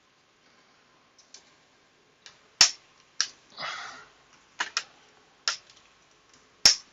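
Sharp plastic clicks and snaps, about six spread unevenly over the last four seconds, with one brief scrape. This is a plastic spudger prying the clips of an HP Pavilion 15 laptop's plastic screen bezel loose.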